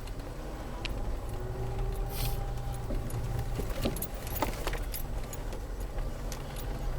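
Land Rover Freelander 2 engine running steadily, heard from inside the cabin, with scattered clicks, knocks and jangling rattles as the car jolts over rough off-road ground.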